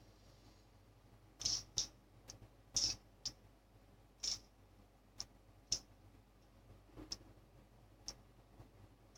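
Wooden spring clips being taken off one by one after clamping a freshly glued phone screen: about ten sharp clicks at uneven intervals, bunched in the first few seconds and thinning out after.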